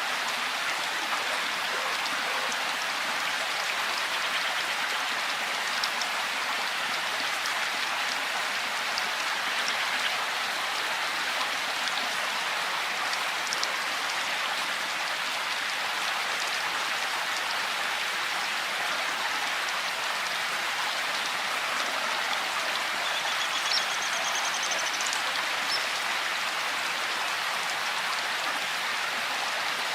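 Steady rainfall: an even, continuous hiss of rain with scattered individual drops ticking through it.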